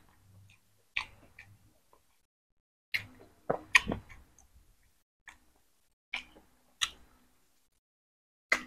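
Close-up eating sounds: a person chewing boiled chicken, with about seven short, wet mouth smacks and clicks a second or so apart.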